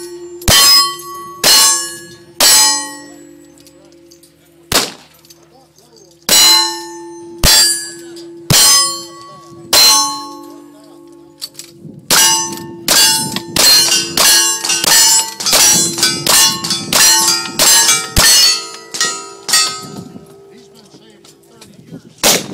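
Gunfire in a cowboy action shooting stage: single-action revolver shots at about one a second, each followed by the ring of a struck steel target. From about halfway through comes a faster string of about ten shots, roughly two a second, still with steel ringing, and one more loud shot near the end.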